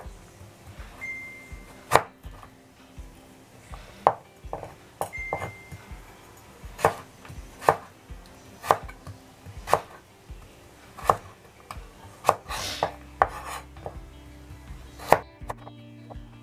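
Kitchen knife cutting burdock root on a cutting board: sharp, separate knocks about once a second, unevenly spaced, as the root is cut into sticks.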